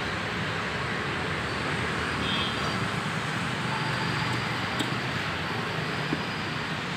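Steady background din of an open-air street market with road traffic noise running under it.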